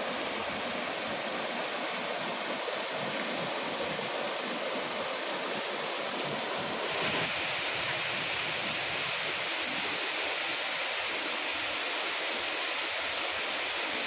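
Water rushing over a low rocky cascade in a forest stream. About halfway through it changes abruptly to the steady, fuller and hissier rush of a tall waterfall falling down a rock face.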